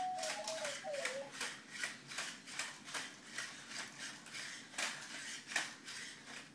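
Sony Aibo ERS-7 robot dog's joint motors clicking in an even series, nearly three a second, as it lowers its head and picks up its toy bone. A short warbling electronic tone sounds at the start.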